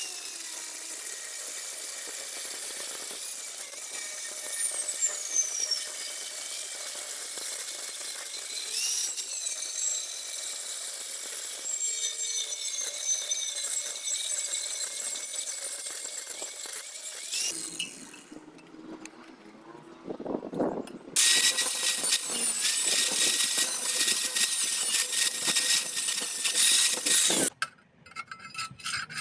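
Electric power tool working metal, running steadily with a whine. It stops about 17 seconds in for a few knocks and clanks, then runs again louder and cuts off sharply near the end.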